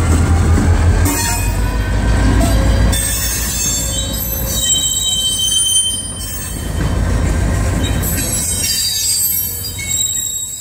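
Florida East Coast diesel locomotive passing close by, its engine rumbling loudest in the first few seconds. Freight cars follow behind it, with high-pitched wheel squeal setting in about four and a half seconds in.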